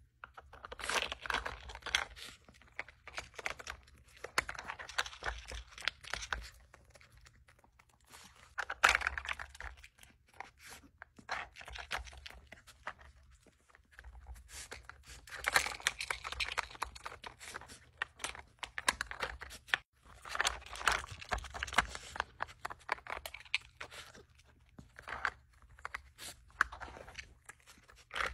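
Chihuahua working a plastic dog puzzle feeder, nosing and pawing the sliding blocks and bone-shaped lids so the plastic clicks and rattles, with bursts of crunching as it chews the food it finds.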